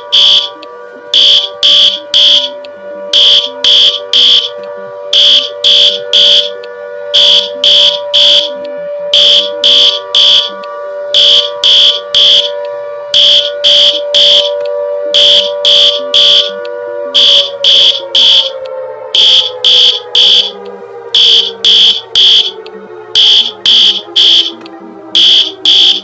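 Emergency alert alarm: loud high-pitched beeps in groups of three, repeating about every two seconds, over a steady low droning tone that begins to slide slowly down in pitch about two-thirds of the way through.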